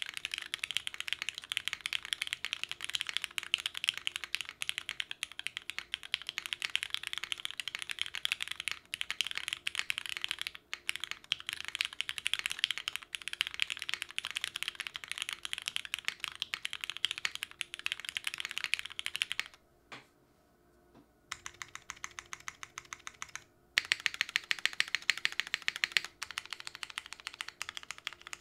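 Typing on a custom gasket-mount mechanical keyboard with a brass bottom and an ABS plate, fitted with lubed and filmed Cherry MX Black linear switches and GMK keycaps. It is a rapid, continuous stream of key presses that stops for about two seconds around twenty seconds in, then picks up again.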